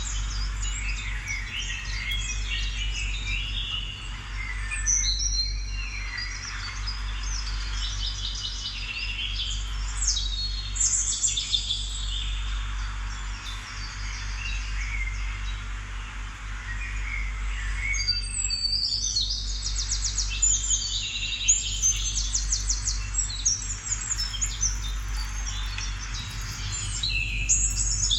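Several birds chirping and singing at once, with quick trills and short calls throughout, over a steady low hum.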